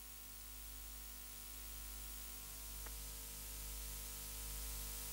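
Faint steady hiss and electrical hum, with a single faint click about three seconds in.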